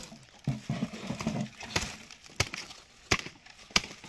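Sharp woody knocks, five of them at uneven spacing, as dry palm wood is struck with a tool.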